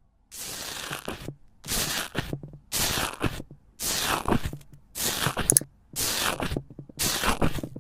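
Slime being worked by hand: seven crackly, rasping strokes, about one a second.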